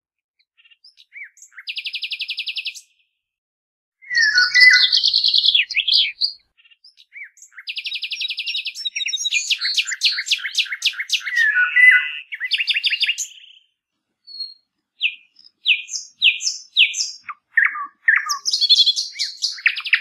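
Songbirds singing: a mix of chirps, fast even trills about a second long and short slurred notes, broken by brief silences.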